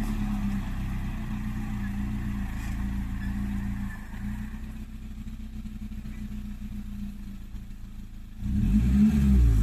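Suzuki Samurai's engine running at low revs, then revving up sharply near the end. It has an exhaust leak that the owner says is getting bigger.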